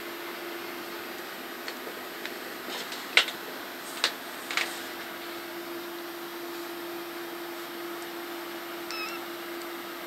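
Month-old kittens moving about in a cardboard box: a few sharp clicks and scrapes about three to five seconds in, and one brief high mew near the end, over a steady low electrical hum.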